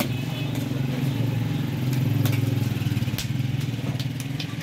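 A small engine idling steadily in a low, pulsing hum, with a few sharp metal clinks over it.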